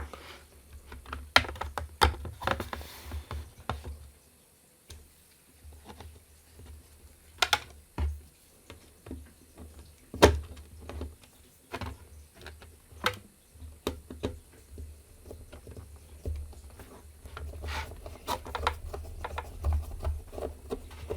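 Irregular clicks, taps and knocks of small hard parts being handled: a screw and screwdriver being worked against a 3D-printed plastic case, with one sharper knock about halfway through.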